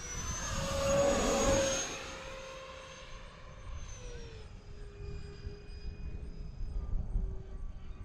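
Freewing A-10 RC jet's twin electric ducted fans whining in a fast low flyby, with a rush of air. It is loudest a second or two in, then drops in pitch about halfway through and fades as the jet flies off.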